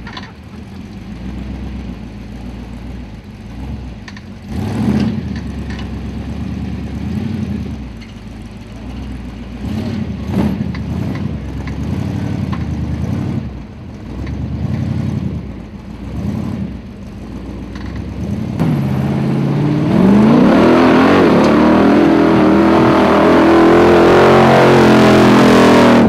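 Formula Offroad buggy's engine revving in short, uneven bursts as it climbs, then about 19 seconds in rising in pitch to a loud, sustained high rev as the car comes up close.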